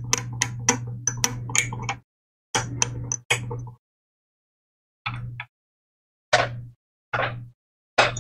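Pointed metal tool scraping the varnish off a circuit board to bare the copper: a quick run of short scratching strokes for the first two seconds, a couple more short bursts, then a few single scrapes with silences between.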